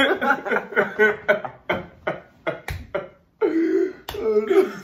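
Several young men laughing hard together in quick bursts, with a sharp smack about two and a half seconds in and long, loud whoops of laughter near the end.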